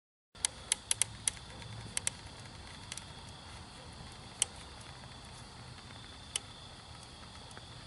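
Molten aluminium pouring into an ant mound, giving sharp crackles and pops: a quick cluster in the first second or so, then single pops every second or two. A steady high insect trill runs underneath.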